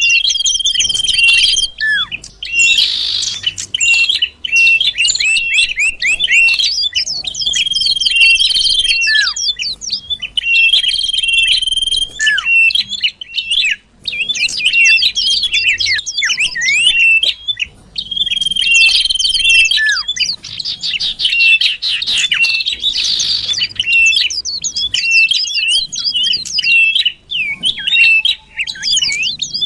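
Common iora (cipoh) singing the 'sirtu' song used as a lure call: rapid, dense chattering trills broken up by long, level whistled notes and a few short downward slurs, repeating over and over.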